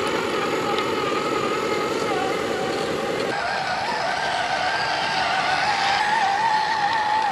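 Radio-controlled scale trucks' electric motor and gear drivetrains whining as they crawl over the trail, with a wavering pitch that rises and falls with the throttle. The sound changes abruptly a little over three seconds in, as the 8x8 gives way to the 2x4 truck.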